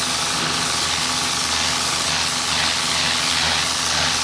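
Pressure washer jetting water against a boat's hull: a loud, steady hiss of spray with a low, steady hum of the machine underneath.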